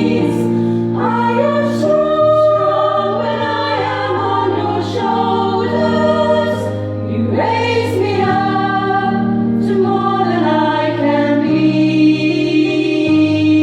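Women's choir singing in held, sustained chords that change every second or two, with sung consonants cutting through.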